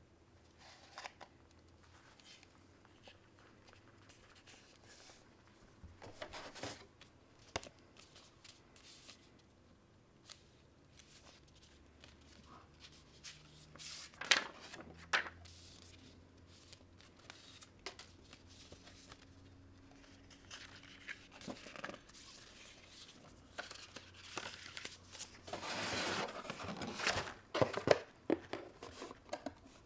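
Hands handling a cardboard headset box and its paper leaflets: scattered rustling, scraping and light knocks, with a longer burst of cardboard-and-paper rustling near the end.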